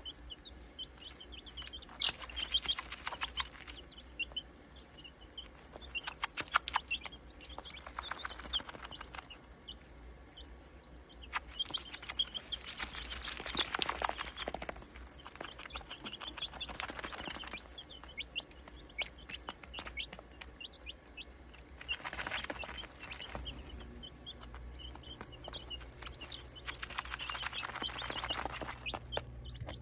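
Week-old chicken chicks peeping: many short, high chirps throughout. Several stretches of dense clicks and rustling noise come and go between them, over a steady low hum.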